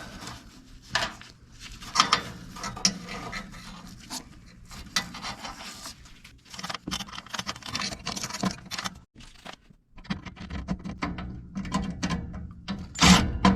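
Irregular clicks, scrapes and rubbing of small metal parts as a furnace flame sensor is fitted back into its mount in front of the burner, with a few louder knocks near the end.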